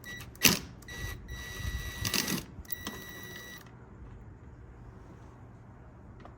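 Clicks and rattles of a Chevy truck's door handle and latch parts being worked by hand: a sharp knock about half a second in, then a cluster of rattling clicks around two seconds.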